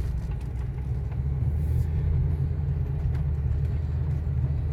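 Low, steady rumble of a car driving, engine and road noise, growing a little louder about a second and a half in.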